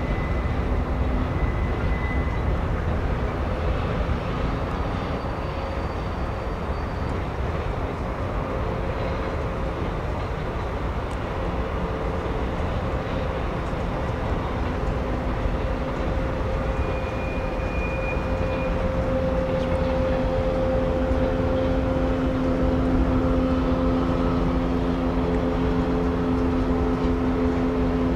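Diesel-hauled freight train rolling across a bridge: a steady rumble of wheels and cars, with a low droning hum that grows stronger about two-thirds of the way through.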